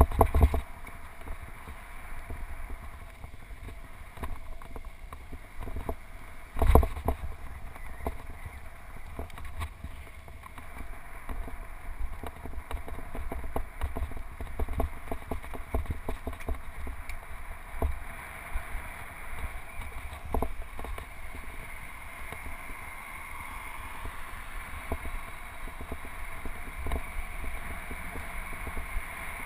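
Riding noise picked up by a camera mounted on a road bike's handlebars: a steady rumble of tyres on pavement and wind on the microphone, with knocks and rattles as the bike rolls over bumps. The loudest knocks come about half a second in and about seven seconds in.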